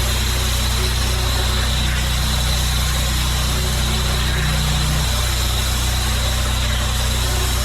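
Pressure washer's engine running steadily under load, with the hiss of the high-pressure water jet over it.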